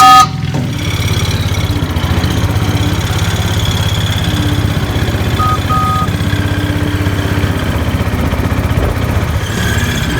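A small vehicle engine running steadily. It is joined by a loud two-note toot right at the start and two short, fainter two-note toots about five and a half seconds in.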